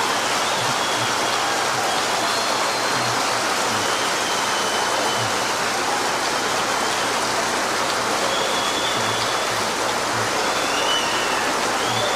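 Large audience applauding and cheering in a long, steady ovation, with a few short whistles heard over it.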